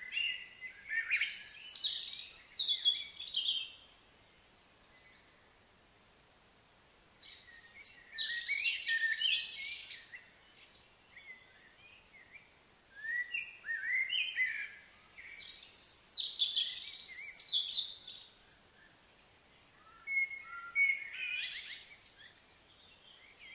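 Birds singing: chirps and short gliding whistled phrases in four bouts of a few seconds each, with quieter gaps between.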